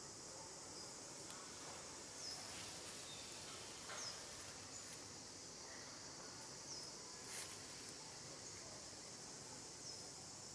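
Faint, steady high-pitched drone of insects, with a short high chirp repeating every second or two and one sharp click about seven seconds in.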